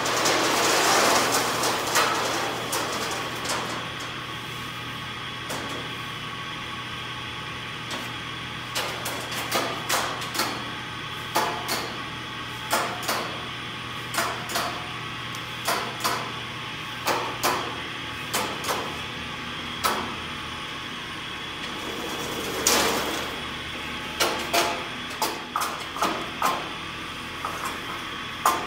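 Hammer blows on a steel band saw blade at a filing bench: a single loud ringing strike, then from about eight seconds in a run of sharp metallic taps roughly once a second, each ringing briefly. A short rushing scrape comes about two-thirds of the way through, over a steady low hum.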